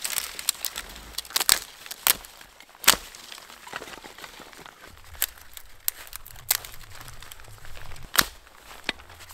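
A series of irregular sharp cracks and crunches, about a dozen, spaced unevenly, the loudest about three seconds in.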